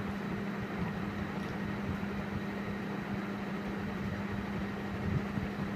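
A steady mechanical hum with a constant low drone over a soft noise.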